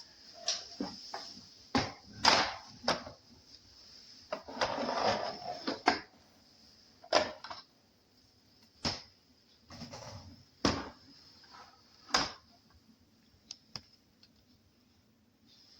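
A string of sharp clicks and knocks, about a dozen, irregularly spaced, with a short scraping rustle about five seconds in, as of hard parts being handled and fitted together.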